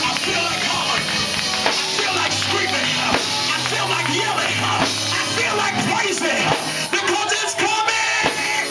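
Loud live music with a drum kit and singing voices, typical of a church service band.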